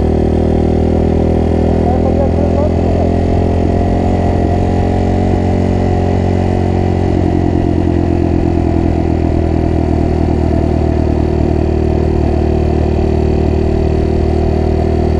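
Honda CRF230F's single-cylinder four-stroke engine running at a steady speed under way, its pitch holding nearly constant.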